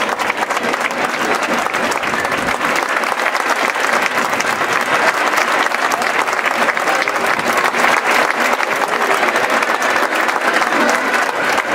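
Large crowd applauding steadily, a dense unbroken patter of many hands clapping.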